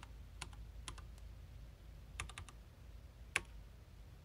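Typing on the Esprit 125C terminal's keyboard: scattered single key clicks, a quick run of four about two seconds in, and one louder keystroke near the end.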